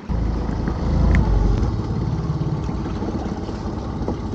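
A small fishing boat's engine running steadily. It starts abruptly and is loudest for its first second or so.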